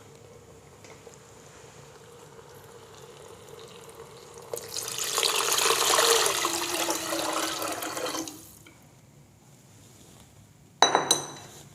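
Chicken stock being poured into the soup pot, a steady rush of liquid that starts about four and a half seconds in and lasts about four seconds. Near the end there is a short ringing clink.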